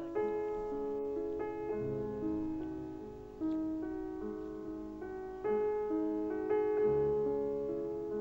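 Piano music: slow, gentle notes and chords struck one after another, each ringing on as it fades.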